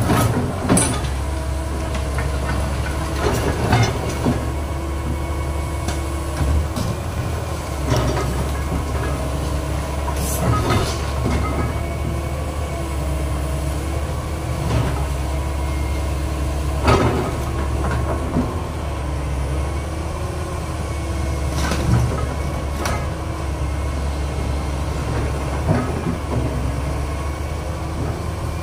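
Doosan hydraulic excavator's diesel engine running steadily as it works. About ten sharp metal clanks are scattered through it as the bucket strikes and drags scrap iron.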